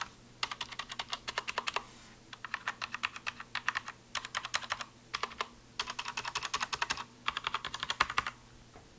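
Steelseries 6Gv2 mechanical keyboard being typed on, with its non-clicking key switches. There are about five quick runs of rapid keystrokes, each about a second long, separated by short pauses.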